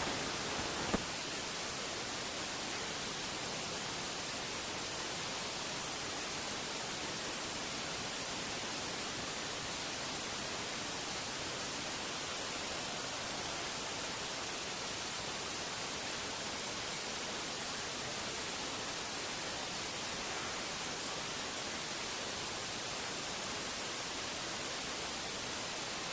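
A steady, even hiss like static, with one short click about a second in.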